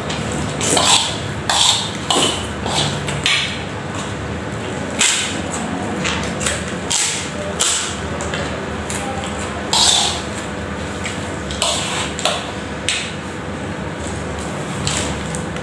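Noisy slurping and chewing of instant noodles eaten from a wok, in many short wet bursts with a few sharp clicks among them. The bursts stop a couple of seconds before the end, leaving a steady background hum.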